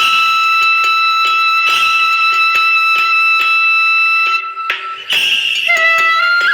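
Background music: a long held high melody note over a steady beat, moving to a new note near the end.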